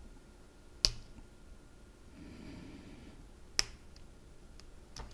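Two sharp clicks about three seconds apart, then a fainter one near the end, from a small radio part and a nut driver being handled, with soft handling noise between.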